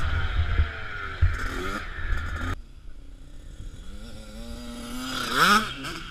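Dirt bike engine heard from the rider's helmet camera, revving and changing pitch, with wind buffeting the microphone. The sound cuts suddenly about two and a half seconds in to motocross bikes heard from trackside: a distant engine rises in pitch and grows louder until one bike passes close near the end, its note then dropping.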